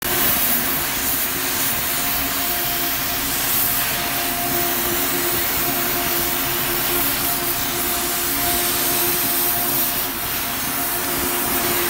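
Gas heating torch flame hissing steadily as it heats a bent steel pipe to fair it straight, over a faint steady machinery hum.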